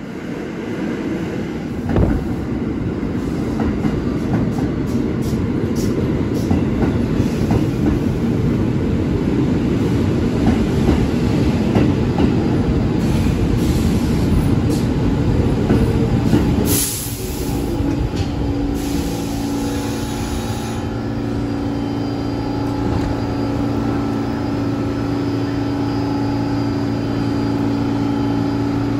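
R46 subway train pulling into the station: a loud rumble of wheels and motors on the rails for about seventeen seconds, with a single knock about two seconds in. A brief hiss comes as it stops, followed by a steady hum from the stopped train.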